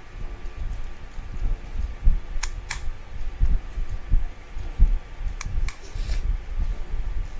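Plastic Wiki Bricks building bricks being handled and pressed together on a truck model: dull low thumps of handling throughout, with sharp plastic clicks, two about two and a half seconds in and three more close together a little past halfway.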